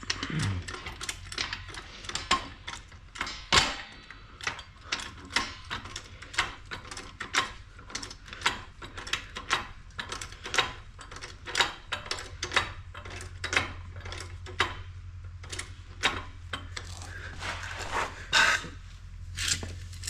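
Ratchet wrench clicking repeatedly, with sharp metallic clicks about two a second, as a bolt is worked. A low steady hum runs beneath.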